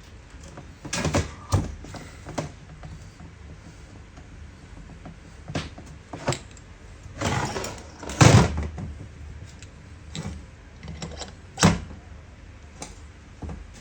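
Scattered knocks and clatters of tools and metal parts being handled on a workbench, irregular and a dozen or so in all. The loudest comes about eight seconds in.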